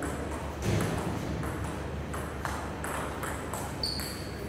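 Table tennis rally: the ball clicking sharply off bats and table in quick alternation, about three hits a second, with a short high squeak about four seconds in.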